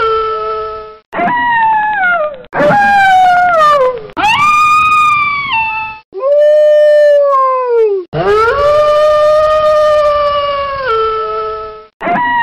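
Wolves howling: about six long howls back to back, each a held note that bends and slides down in pitch at the end, some dropping in a step. They start and stop abruptly, as if cut one after another.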